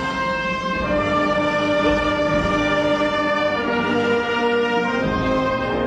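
Orchestral music with strings and brass playing long held notes that change every second or so.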